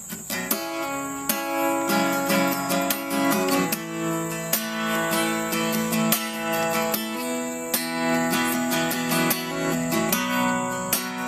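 Yamaha acoustic guitar with a capo, strummed and picked, chords ringing with sharp accented strokes in a steady rhythm.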